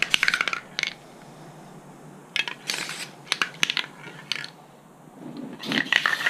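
Aerosol spray paint can: short hissing bursts of spray, mixed with sharp metallic clicks and clinks as the cans are handled and set down.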